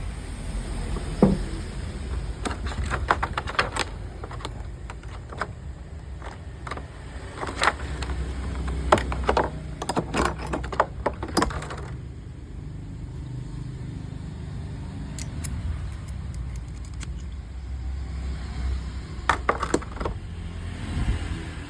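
Irregular clicks, knocks and rattles of small hard parts being handled, in three clusters, over a steady low rumble.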